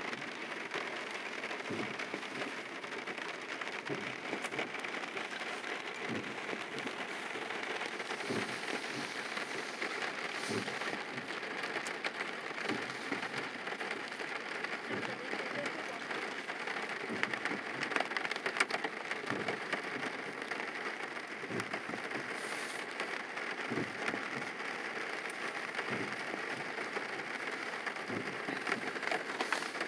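Rain falling on a car's roof and windshield, heard from inside the cabin: a steady patter of drops, with a soft low thump about every two seconds.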